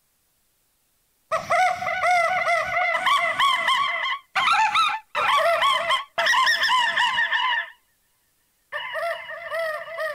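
A horned owl call sample played back through a software sampler as a fast melody: short hoots retuned to different pitches in 12-tone equal temperament, one after another. It starts about a second in and comes in four phrases with short pauses, the longest pause near the end.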